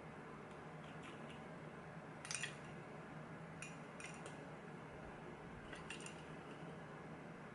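Faint metallic clicks and clinks from a lock cylinder and lockpicking tools being handled while trying to gut the lock, in three small clusters about two, four and six seconds in. A steady low hum runs underneath.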